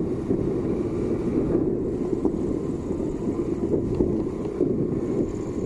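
Suzuki Access 125 scooter riding along at steady speed: a steady low rumble of wind buffeting the microphone, over the scooter's single-cylinder engine.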